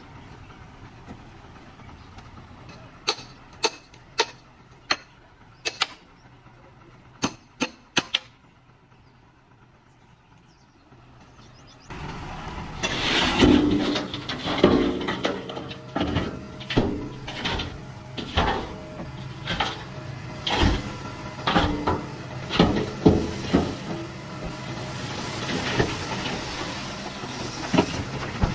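Backhoe loader's diesel engine running low, with a few sharp clicks. About twelve seconds in, the sound jumps suddenly louder, with the engine working and repeated clanking knocks and clatter.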